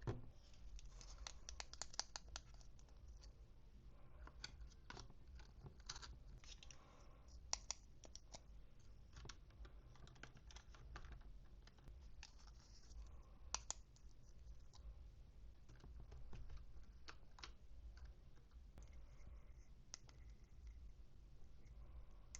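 Faint, scattered clicks and scratches of toy packaging and small plastic doll accessories being handled during an unboxing, with a couple of sharper clicks about a third and about two-thirds of the way in.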